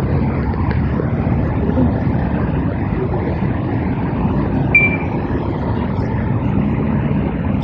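Steady low outdoor rumble of wind and traffic, with one brief high tone about five seconds in.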